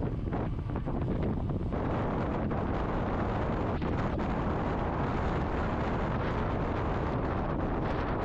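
Wind buffeting the microphone: a steady, dense rush of noise.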